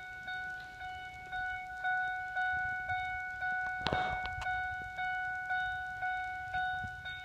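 A Ford SVT Lightning pickup's dash warning chime dinging over and over, about two dings a second, each fading before the next. It is the kind of chime that sounds while the driver's door is open. A brief thump about four seconds in.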